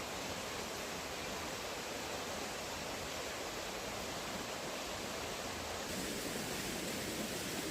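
Steady, even rushing noise with no distinct events; the highest hiss brightens slightly about six seconds in.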